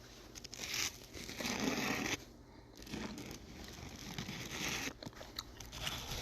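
Crumpling and rustling as something is handled. It comes in rough bursts, loudest over the first two seconds, then settles into a steadier rustle.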